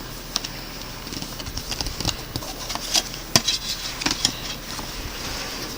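Plastic CD jewel case and paper booklet being handled: a scatter of small clicks, taps and rustles as the booklet is taken out.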